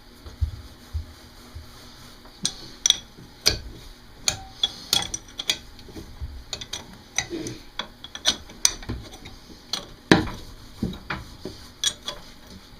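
Irregular metallic clicks and clinks of hand tools and hardware being worked on the manifold fastenings of an Atomic 4 marine engine during gasket refitting, a few sharp knocks a second at uneven spacing.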